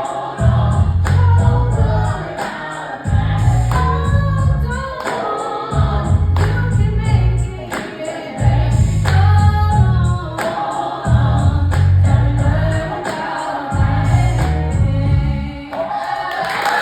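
Gospel music: choir and a woman singing over a backing track with a pulsing bass.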